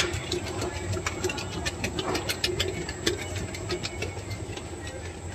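Commercial bakery dough mixer running, its beater churning biscuit dough as flour is mixed in: a steady motor hum with rapid, irregular clicking and rattling.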